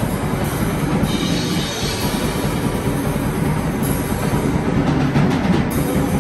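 Live rock band playing loud, with drum kit and electric guitar.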